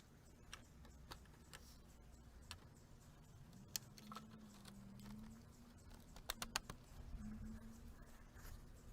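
Faint, scattered clicks and light taps of composite raised-bed boards and plastic snap-lock stacking brackets being fitted together, with a quick run of four clicks a little past the middle.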